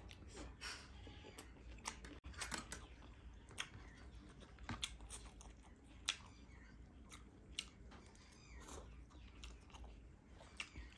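Close-up eating sounds: a mouth chewing crunchy food, with irregular crisp crunches and clicks.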